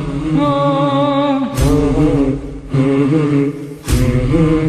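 Male voices singing a slow, wordless held melody between verses of an Iraqi patriotic song, with a heavy drum beat struck twice.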